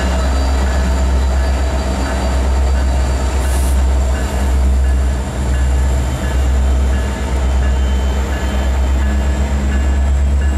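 EMD diesel locomotives of a freight train (an SD90/43MAC, an SD70M-2 and a GP60) rolling past at close range with a steady deep engine rumble and wheel noise. A grade-crossing bell dings over and over.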